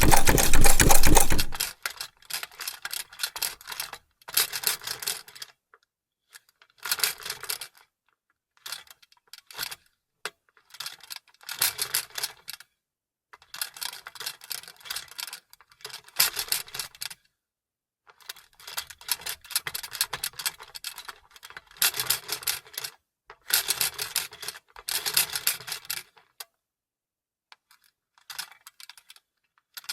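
Vintage sewing machine running fast, then stopping about a second and a half in. After that it goes in short stop-start bursts of quick clicking, each about a second long, with pauses between.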